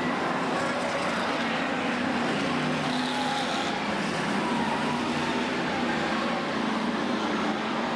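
F1 stock cars' V8 engines running hard as a pack races round the oval and passes close by, a steady engine din with pitches that shift as the cars come and go.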